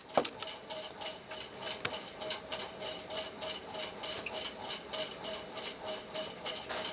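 Rapid light ticking from a smartphone in use, several clicks a second over a faint steady hum.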